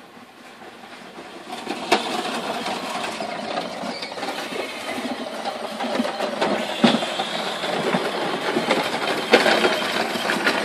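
Electric ride-on toy buggy driving over dry grass: its small motors and plastic wheels run steadily, growing louder over the first couple of seconds as it comes closer, with a few sharp knocks along the way.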